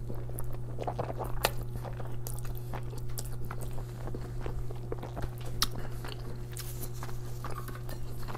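Close-miked chewing of a big mouthful of cheesy spaghetti with pepperoni: irregular wet mouth clicks and smacks. A steady low hum runs underneath.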